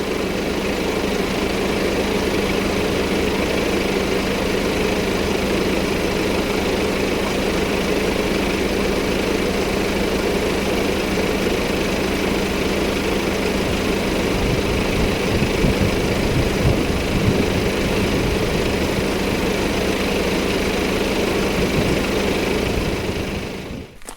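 An engine running steadily at idle, with a heavier low rumble in the second half, then cutting off abruptly near the end.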